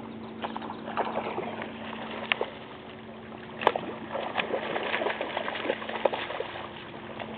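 Irregular splashing and sloshing of shallow water as a person wades and moves through it, over a steady low hum. A single sharp click about halfway through.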